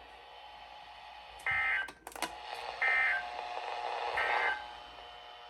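Emergency Alert System end-of-message data tones: three short bursts of the SAME digital warbling signal, about a second and a half apart, with a few clicks between the first two. They mark the end of the alert.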